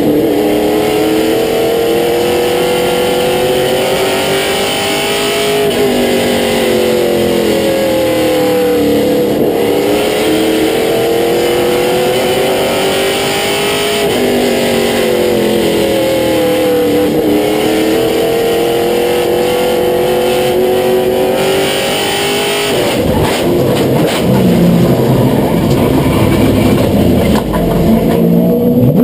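Limited Late Model race car's V8 engine heard from inside the cockpit at racing speed. Its pitch rises steadily for several seconds, then drops sharply, over and over: full throttle on the straights and a lift for each turn of the short oval. About 23 seconds in, the clear engine note gives way to a lower, rougher sound.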